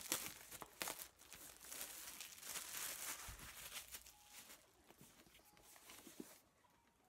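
Clear plastic shrink-wrap being torn and crinkled off a tablet's retail box. It is loudest over the first four seconds or so, then fades to faint rustling.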